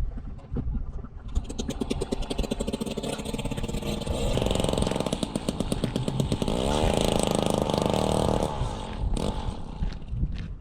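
Motor of a powered ice auger running as it drills a hole through lake ice. It grows louder about four seconds in, revs up briefly past the middle, then eases off near the end.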